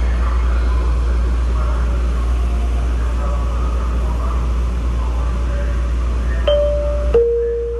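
Light-rail train running, heard from inside the car: a steady low rumble with faint passenger voices. Near the end a two-note falling chime sounds, the second note held.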